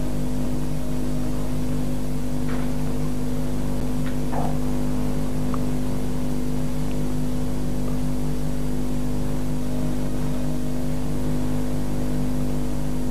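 Steady electrical hum made of several fixed tones over a faint hiss, the mains buzz on an old analogue video recording's sound track, with a couple of faint brief sounds about two and a half and four seconds in.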